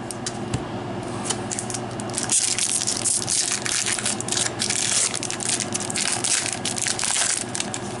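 A Magic: The Gathering booster pack's foil wrapper crinkling and tearing as it is ripped open by hand. A dense crackle starts about two seconds in and eases off near the end.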